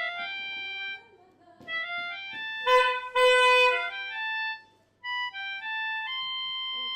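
Music: a simple melody of held, stepping notes on a single instrument, played in three short phrases with brief pauses between them.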